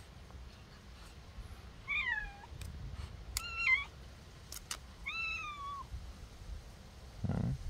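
Cat meowing three times: a falling meow, a higher, flatter one, then one that rises and holds. A brief low, rough sound comes near the end.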